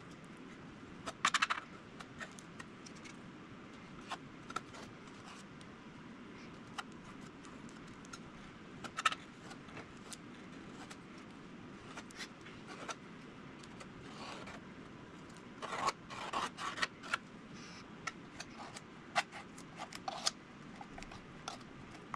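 Small metal spatula scraping and lightly tapping as thick epoxy filler mixed with phenolic microballoons is worked into a seam over packing tape: scattered short clicks and scrapes in a few clusters, the busiest group about two thirds of the way through, over a faint steady hiss.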